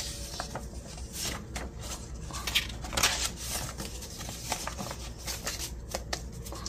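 Paper dollar bills rustling and crinkling as they are counted, folded and tucked into a binder cash envelope, a string of soft papery crackles with a few louder ones about two and a half to three seconds in.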